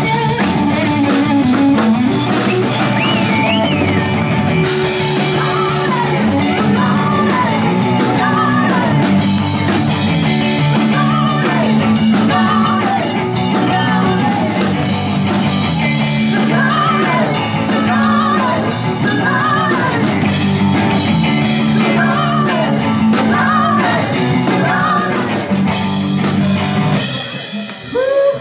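Live rock band with electric guitar, electric bass and drum kit playing a song while a woman sings lead.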